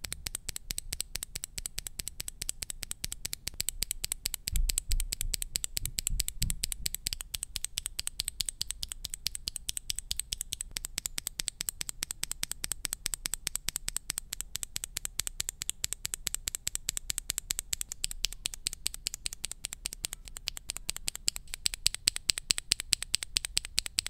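A Gazzew Boba U4T tactile mechanical keyboard switch pressed rapidly by a finger, first under an ABS keycap and then under a PBT keycap: a fast, even run of sharp clacks.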